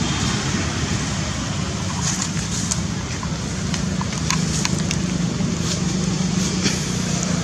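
Steady rumble of road traffic with a low engine hum, and a scattering of short, high ticks from about two seconds in.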